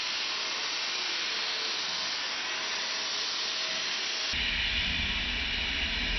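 Steady hiss from an automated welding station throwing sparks off a steel car-body part. About four seconds in, a click and a sudden change to a slightly louder, deeper machine rumble as a robot welding cell takes over.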